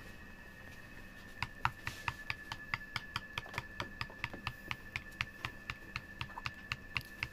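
Pink plastic spoon clicking against the side of a glass bowl as it stirs a watery gel and borax mixture: a quick, even run of light clicks, about five a second, starting about a second and a half in.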